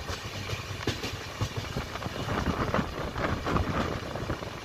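Rumble and irregular clatter of the 12932 AC Double Decker Express's coach wheels running on the rails at speed, with sharp knocks crowding together and growing louder in the middle.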